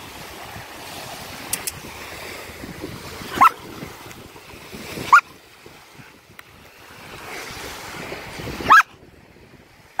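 Young German Shepherd barking, four short barks a couple of seconds apart, over steady surf and wind.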